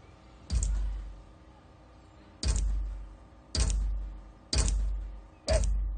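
Water dripping from a tap, each drop landing as a loud, sharp hit with a deep tail that dies away. There are five drips, the first two about two seconds apart, then about one a second.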